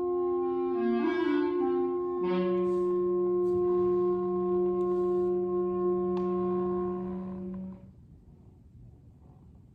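Clarinet and saxophones holding a chord of several long notes together. The lower voices shift pitch about two seconds in, and the whole chord cuts off together near eight seconds, leaving faint room noise.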